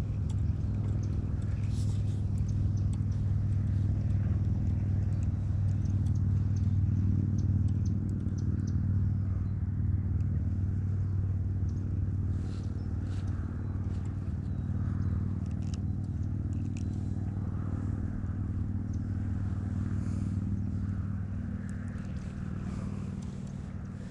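A steady low hum, engine-like, with a few light scattered clicks and ticks over it; it eases off slightly near the end.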